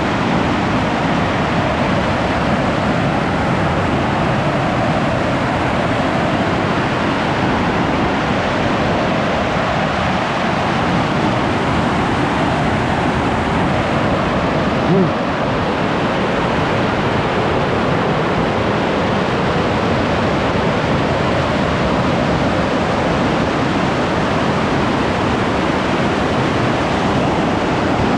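Large waterfall on the Nzoia River pouring over rocks: a loud, steady, thunderous rush of falling water.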